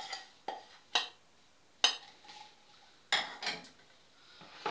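Metal spoon knocking and scraping against a stainless steel saucepan and glass bowl while thick semolina porridge is scooped out: about six sharp clinks, some with a short ring.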